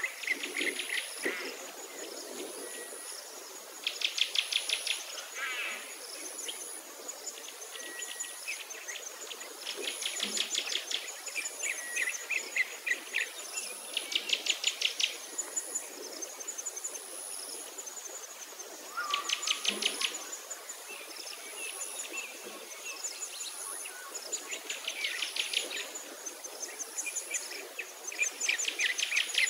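Songbirds singing: a rapid high trill about a second long repeats about every five seconds, with softer chirps in between. Under it runs a faint, very high insect chirring in regular pulses about once a second.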